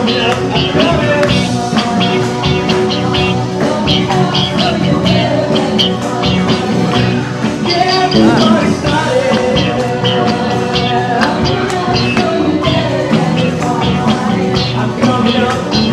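Lively rock-style band music with a steady beat, from guitar and keyboard.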